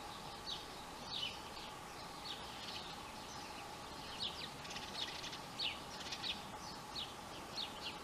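Small songbird chirping repeatedly: short, falling, high chirps about once or twice a second, over a faint steady hum.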